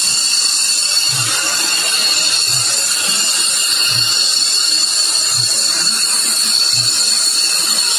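F-16 fighter jet engine idling with a steady, high-pitched whine, under a low throb that repeats about every second and a half.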